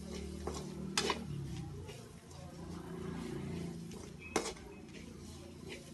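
A spatula stirring and scraping thick spice masala in a metal kadai, with two sharp clinks of the spatula against the pan, about a second in and about four and a half seconds in.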